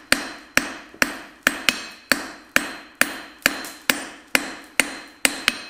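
Hand hammer striking a hot tapered bar on the anvil face at a steady rhythm of about two blows a second, each blow followed by a short decaying ring. This is the stage of knocking the corners off an octagonal taper, with the bar rotated to the next corner between blows.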